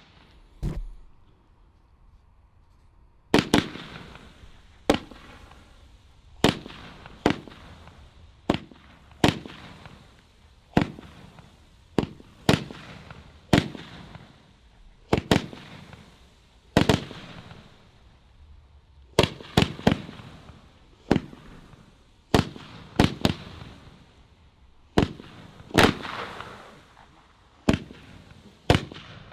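Three 20 mm Blue Comet Hong Kong candles (roman candles) firing together: after a single pop near the start, a string of about thirty sharp reports begins about three seconds in. They come roughly one a second, some in close pairs, each one a comet being launched.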